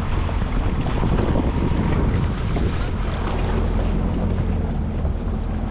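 Jet ski engine running steadily at low speed, with wind buffeting the microphone and water splashing against the hull. A steady engine tone comes in about halfway through.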